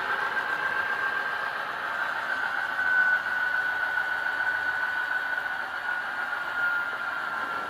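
A model locomotive's Tsunami sound decoder plays a GE diesel engine idling through its small speaker. A steady whine sinks slowly in pitch over the engine sound.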